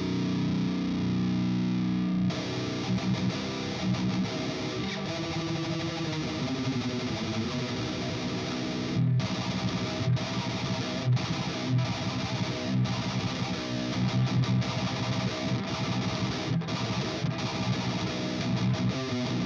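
Distorted electric guitar played through an ENGL E530 tube preamp and a 4x12 Vintage 30 cabinet impulse response: a held chord for about two seconds, then riffing on changing notes with several brief stops.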